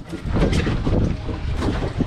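Wind rumbling on the microphone, with rubbing and knocking handling noise from a moving camera.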